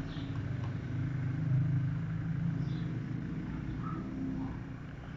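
A steady low engine drone, slightly rising and falling in level, with a few faint small ticks over it.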